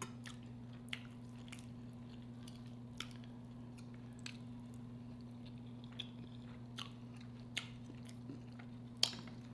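Close-miked chewing and mouth sounds of a person eating red snapper and sautéed cabbage, with scattered soft clicks. A steady low hum runs underneath.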